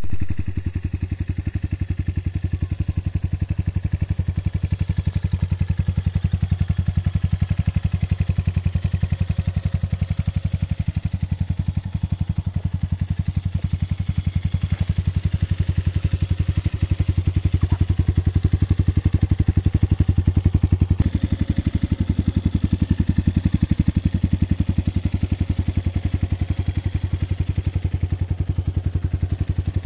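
Rusi KRY 200's single-cylinder four-stroke engine idling steadily, a rapid even pulse of exhaust beats.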